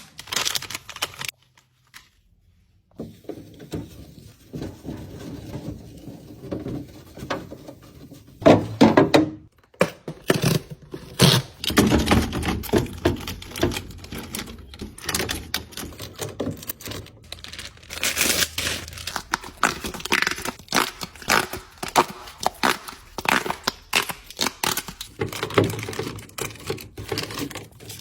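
Continuous handling noise: plastic packaging crinkling and rustling, with many sharp clicks and knocks of containers being moved, starting about three seconds in.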